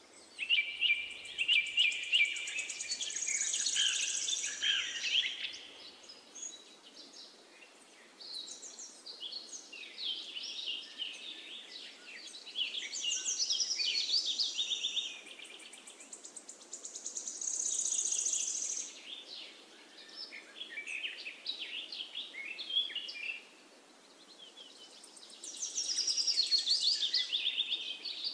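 Birds singing: bursts of quick high chirps and trills lasting a few seconds each, coming back every several seconds over faint steady background noise.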